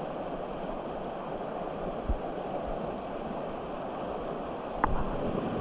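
Steady rush of a trout stream's running water, with a couple of brief low thumps about two seconds in and a short click near the end.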